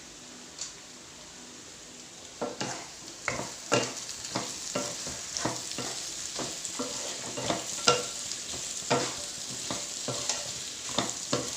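A spoon stirring and tossing fried chicken pieces in a pan, knocking against the pan at irregular intervals from about two seconds in, over a light frying sizzle. This is the final toss that mixes sesame seeds, chilli flakes, coriander and curry leaves into the dry chicken kondattam.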